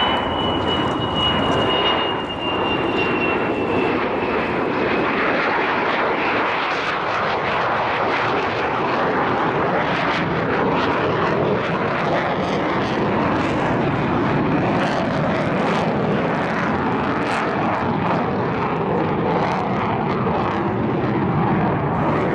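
Loud jet noise from the F-4EJ Kai Phantom II's twin J79 turbojets as it passes in a flying display. A high whine sinks slowly in pitch over the first few seconds, then the engine noise stays steady and dense.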